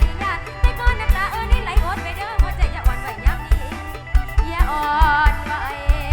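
Live Thai mor lam band music: a steady kick-drum beat under a wavering, bending lead melody.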